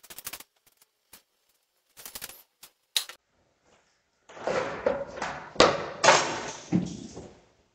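Water spinach and other greens handled by hand in plastic bowls: a few short clicks, then from about halfway in some three seconds of dense rustling with several sharp knocks.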